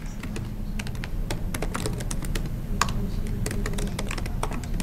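Typing on a laptop keyboard: quick, irregular key clicks.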